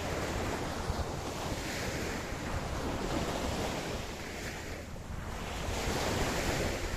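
Ocean surf washing onto a beach: a continuous rush of breaking waves that eases a little around the middle and swells again near the end, with a low wind rumble on the microphone.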